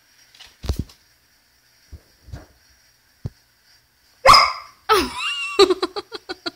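A few faint knocks, then, about four seconds in, a border collie barks loudly and keeps on with a quick run of short barks and a yelp that slides in pitch. The dog is barking at a large ball of ice frozen in a water balloon, an object it doesn't yet know what to make of.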